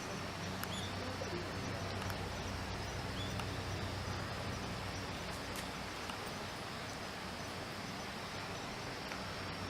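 Steady outdoor background noise with a few faint, short bird chirps, one about a second in and another about three and a half seconds in.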